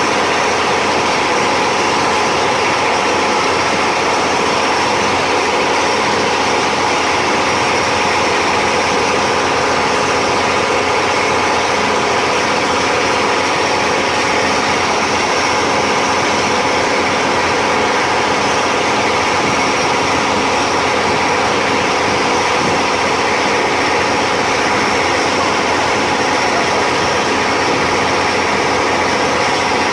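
Motorboat engine running steadily at cruising speed, with the rush of the boat's wake along the hull.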